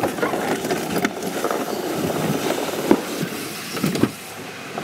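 An alpine slide sled scraping and rumbling along the concrete track, with a few sharp knocks. The rumble drops away suddenly about four seconds in.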